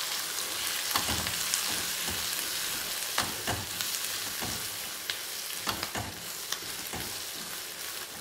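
Onions with turmeric and chilli powder frying in groundnut oil in a pan, a steady sizzle broken by irregular clinks and scrapes as a spatula stirs them.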